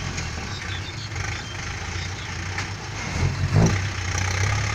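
Heavy diesel truck engine idling low and steady, a little louder near the end.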